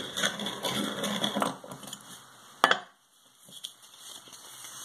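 Circle cutter blade scraping as it is turned through fabric laid on a plastic backing sheet, stopping about a second and a half in. A sharp click follows near the middle, then soft rustling of fabric as the cut-out circle is pulled free.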